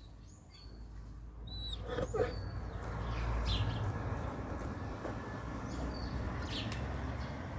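Small birds chirping now and then over a steady low rumble, with a few sharp clicks.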